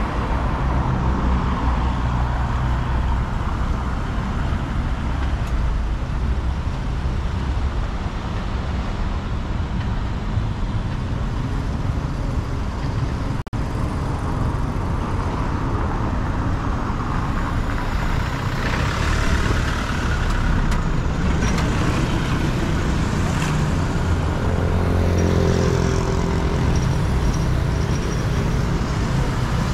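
Road traffic on a city street: a steady rumble of cars and other motor vehicles passing, a little busier in the second half.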